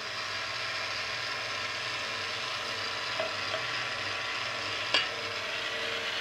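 Tilt-head stand mixer running steadily on low, its whisk beating powdered egg whites as water is poured into the bowl, giving a continuous hissing, sloshing whirr. A single sharp knock about five seconds in.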